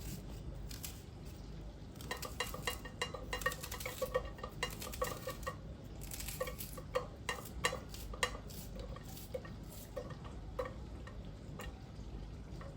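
Kitchen dishes and utensils clinking and knocking together in a quick run of light ringing clinks. They start about two seconds in and grow sparse after about eight seconds.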